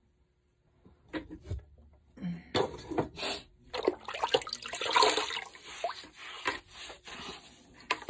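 Wet clay and water being worked by hand at a potter's wheel: irregular sloshing and squelching of slip and water. It starts about two seconds in, after a near-silent start and a couple of light knocks.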